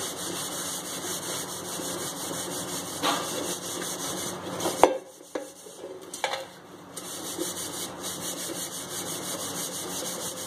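Mesh scrubber rubbing a tarnished copper jug coated with citric acid powder, a steady rasping scrub that cleans off the blackening. About halfway the scrubbing pauses with a sharp tap, then resumes for the rest.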